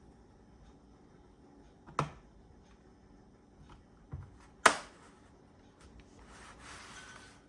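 Two sharp plastic-like clicks and a soft knock of laptop parts being handled, followed by a brief rustling hiss near the end.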